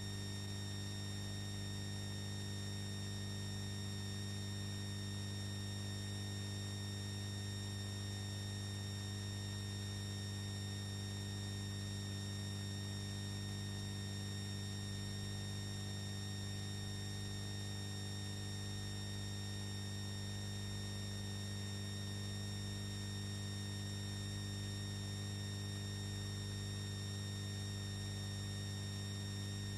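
Steady electrical mains hum with a faint hiss and a few thin, high, steady whining tones above it, unchanging throughout; no other sound.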